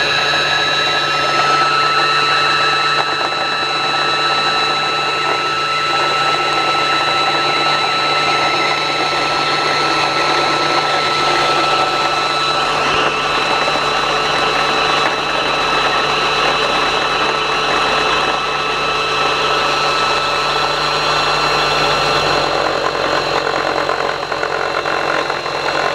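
Electric sewing machine motor running steadily at high speed to wind the bobbin, a whine with several steady tones over a low hum, stopping right at the end once the bobbin is full.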